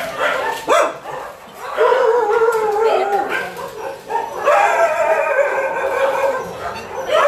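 Dogs howling and whining in long, wavering cries: a short cry near the start, a long cry falling in pitch about two seconds in, then a longer, layered cry from about four and a half seconds in.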